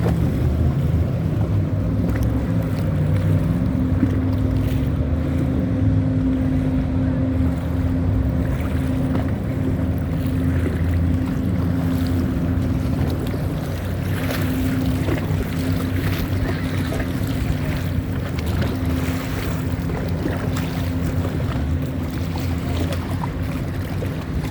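A boat's engine running steadily, a low drone with a held hum, under wind noise on the microphone.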